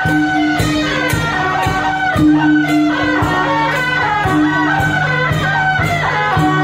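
Traditional Taiwanese procession band playing live: shrill suona-type reed horns carry a held, wavering melody over regular drum, gong and cymbal beats, about two beats a second.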